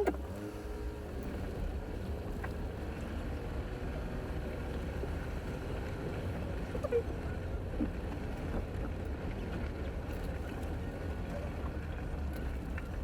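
Steady low rumble of a pickup truck driving slowly, engine and tyre noise with no sharp events.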